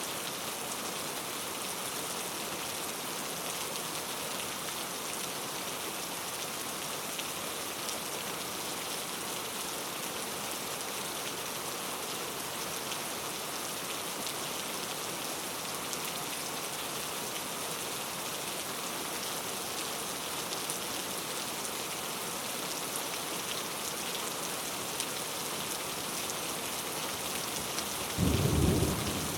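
Steady rain falling in a rainforest, an even hiss of many drops. Near the end a brief, louder low rumble starts suddenly.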